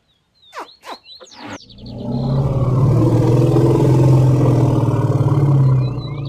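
Elephant giving a loud, low rumbling growl, held for about five seconds from a second and a half in. Small birds chirp around it.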